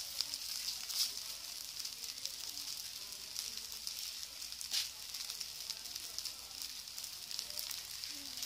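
Fried rice with egg and ham sizzling in a hot wok: a steady hiss, with a few brief louder crackles about a second in and near five seconds.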